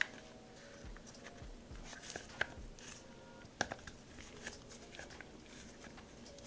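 Faint, scattered clicks and light taps of small SAR 9 pistol parts being handled and fitted back into the frame. Two sharper clicks come about two and a half and three and a half seconds in.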